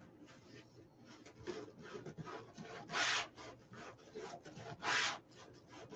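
Scratchy rubbing and rustling of wreath-making materials being handled, a run of short strokes with two louder scrapes about three and five seconds in.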